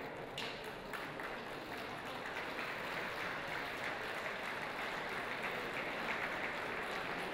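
A large crowd applauding steadily, the clapping swelling to a fuller level about two seconds in.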